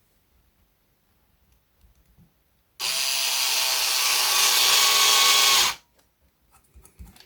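Power drill running steadily for about three seconds, driving a screw into the guitar, starting and stopping abruptly.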